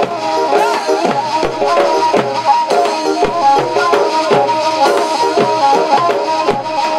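Live Tunisian folk music: a melody instrument plays a quick, stepping tune over steady beats on a large double-headed drum.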